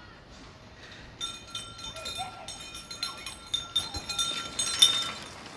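Metallic ringing and clinking, starting about a second in: several steady ringing tones held together, with light irregular knocks over them.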